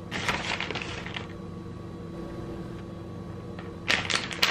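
Fat crackling and popping in a frying pan under slices of bread frying on low heat. The crackles come in two short clusters, one in the first second and one near the end, over a steady low hum.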